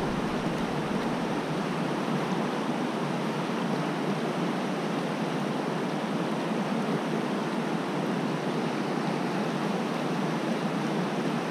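Small creek running over a shallow riffle: a steady, even rush of water with no change.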